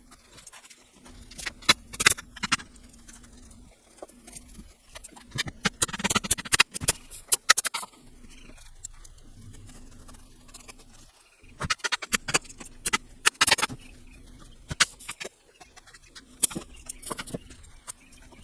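Bursts of sharp clicks and knocks, in four clusters, over a faint steady hum.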